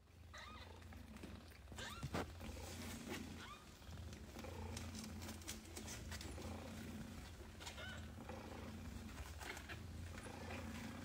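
A domestic cat purring steadily, a low pulsing rumble: a mother cat purring while her kittens nurse. A few faint short high squeaks from the kittens and small clicks come over it.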